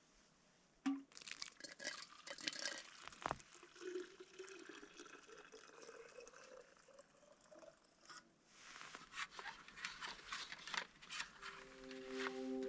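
Faint, irregular crunching and clicking of something being handled. Soft music comes in near the end.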